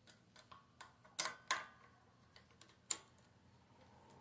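Scattered light metallic clicks and taps from a screwdriver and fingers working at the ignition coil's mounting screws on a small mower engine. The sharpest clicks come a little past a second in and again near three seconds.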